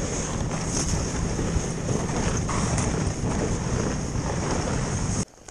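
Snowmobile running along a snow trail, a steady low engine rumble mixed with hissing rush and wind buffeting the microphone. It cuts off suddenly near the end.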